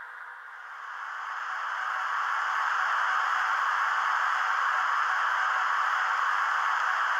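Steady hissing noise from a Märklin H0 model electric locomotive of the E10 class, standing with its lights switching, typical of a sound-equipped model playing its running and blower sound. It swells up over the first two seconds or so, then holds level.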